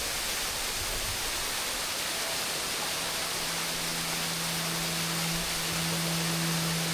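Steady rush of a high-flow limestone waterfall in full rainy-season flow, a continuous even hiss. About halfway through, a low held tone comes in under it.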